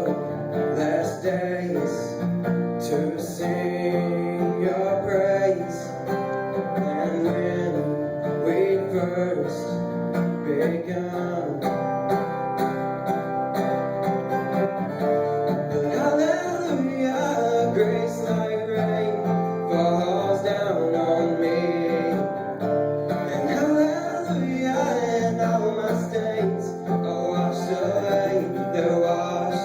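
A man singing a worship song with acoustic guitar accompaniment.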